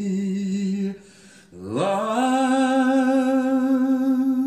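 Recorded vocal music played over hi-fi loudspeakers: a singer holds a note with vibrato, breaks off about a second in, then glides up into a long held note.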